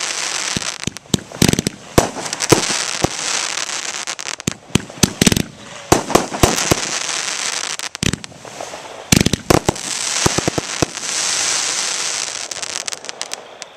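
Aerial fireworks going off in rapid succession: many sharp bangs over a constant crackle of bursting stars, dying away near the end.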